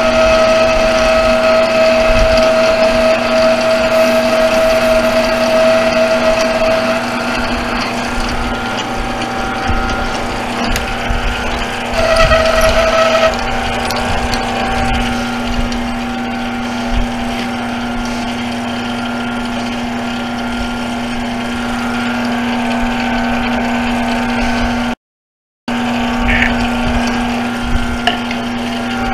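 Benchtop mini metal lathe running with a steady motor and gear whine while turning a brake rotor hub. For the first several seconds, and again briefly about 12 seconds in, a higher ringing tone sounds over it as the tool cuts the spinning metal. The sound cuts out for a moment near the end.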